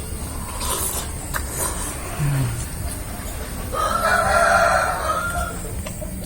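A rooster crowing: one long call about four seconds in, lasting close to two seconds.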